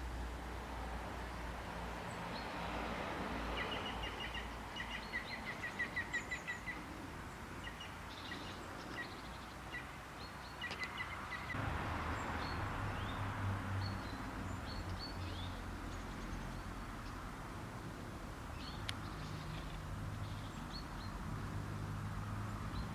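Birds chirping over a steady low background hum, with a quick run of repeated short chirps about five seconds in and scattered single notes after.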